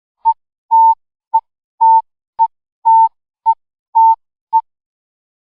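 Loud electronic alert beeps at one steady mid pitch, nine in a row, alternating short and long at about two a second.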